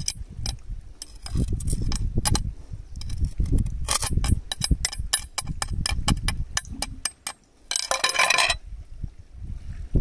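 A metal blade chipping rock oysters off shoreline rock: sharp clinks and taps, a quick run of about five taps a second in the middle, and a short scrape near the end.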